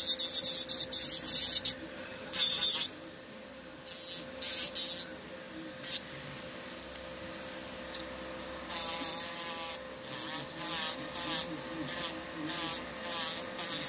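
Electric nail drill (e-file) running with a steady whine, its bit grinding on an artificial nail in rasping bursts. The grinding is longest and loudest in the first two seconds, then comes in short strokes, quickening near the end.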